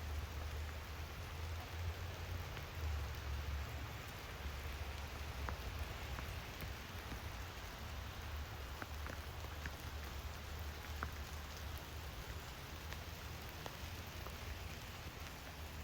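Steady rain falling, with a few separate drops ticking, over a constant low rumble.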